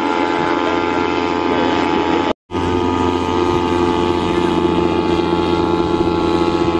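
Steady, many-toned drone of a Balinese bebean kite's humming bow (guangan) vibrating in the wind. It cuts out for an instant about two and a half seconds in.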